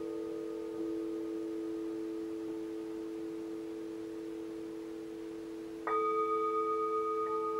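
Several Tibetan singing bowls ringing together in long, overlapping steady tones. About six seconds in, a bowl is struck with a mallet and a louder, brighter ring sets in over the others.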